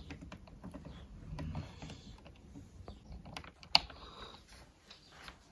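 Light, scattered clicks and taps of multimeter probes and wires being handled at lever-type wire connectors, with one sharper click a little past the middle. The wiring is being probed for a connection that isn't making proper contact.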